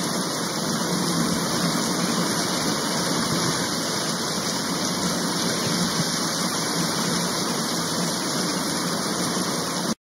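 Steady rain falling, an even, unbroken hiss with no single drops or thunder standing out.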